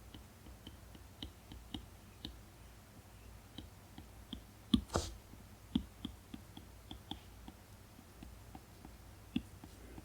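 Stylus tip tapping and clicking against an iPad Pro's matte screen protector while drawing: many small, irregular clicks, with one louder click and a brief hiss about five seconds in.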